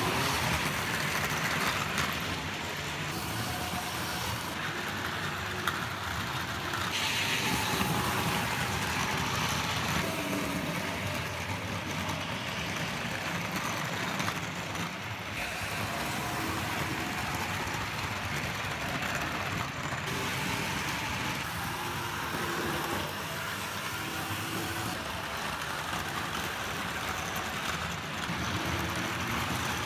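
Vintage Tri-ang R.159 double-ended diesel model locomotive running on the layout, pulling a rake of passenger coaches: the steady whirr of its small electric motor with the wheels rolling on the rails.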